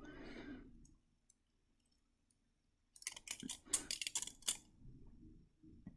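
Fingers pressing and scraping on a peeled, dried avocado stone while feeling for its seam: a quick run of crackling clicks starting about three seconds in and lasting about a second and a half.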